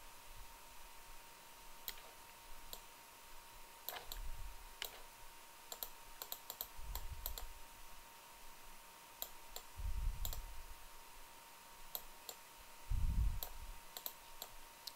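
Computer mouse clicking, scattered single clicks and quick runs of clicks, with a few soft low thumps, the loudest about thirteen seconds in, over a faint steady whine.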